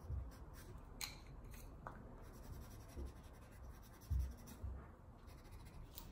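Coloured pencil strokes scratching faintly on sketchbook paper, with scattered light clicks of the pencils and a few dull low bumps, the clearest about four seconds in.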